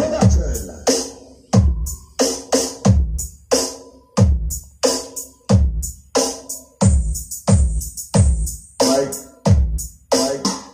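Electronic music with a drum-machine beat, about two kick-drum hits a second with hi-hats over them, played loud through large speaker cabinets driven by a DIY 737-module power amplifier.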